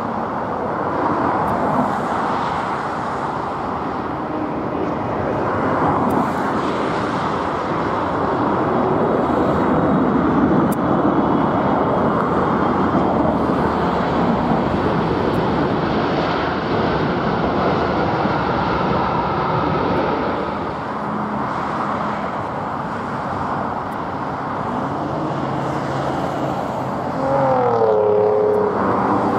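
Jet airliner on landing approach: a loud, broad roar that swells and eases. Near the end, engine tones drop steeply in pitch as the aircraft passes close by.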